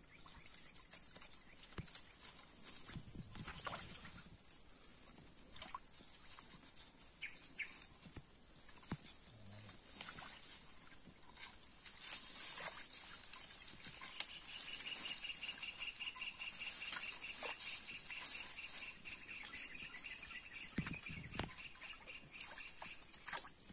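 Steady high-pitched chorus of insects in a tropical swamp. About fourteen seconds in, a second insect joins with a fast pulsing trill, lower in pitch. A few sharp clicks are heard, the loudest one about fourteen seconds in.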